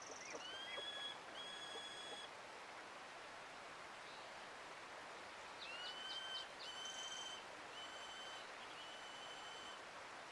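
A bird singing over the steady rush of a flowing river. Twice, a few quick short notes lead into a run of long, level whistles, once near the start and again about halfway through.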